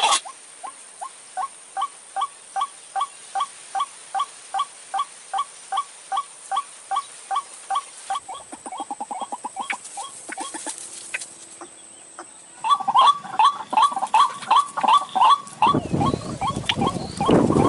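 White-breasted waterhen (ruak-ruak) calls played as a lure: a long run of short, repeated 'kook' notes, about three a second. The notes speed up briefly near the middle and come back louder later, with a loud harsh stretch near the end.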